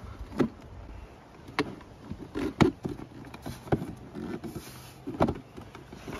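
Hard plastic BMW X3 inner door-pull trim knocking and clicking against the door card as it is worked into its slots and clips. There are about half a dozen sharp knocks, irregularly spaced, and the loudest comes about two and a half seconds in.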